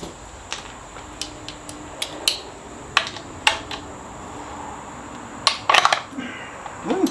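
A 7/16 socket wrench turning the bolts of a motorcycle's air cleaner backing plate: scattered metallic clicks and clinks, with a quick cluster of clicks about five and a half seconds in.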